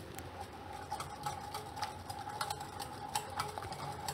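Wire whisk stirring yogurt in a glass bowl: light, irregular ticks of the wires against the glass, over a faint steady hum.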